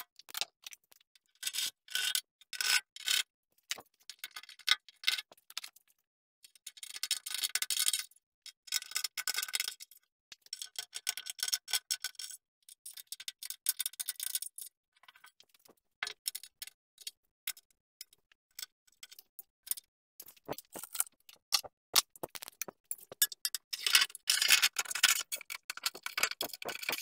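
Metal hardware being handled on the lathe's sheet-metal backsplash: irregular clicks and clinks with short spells of rattling and scraping. The longest scraping comes near the end, as a long aluminium extrusion is laid along the top.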